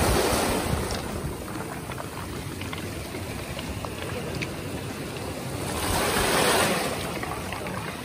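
Small sea waves washing up over a pebble beach and draining back. One surge comes at the start and another, slightly louder, about six seconds in.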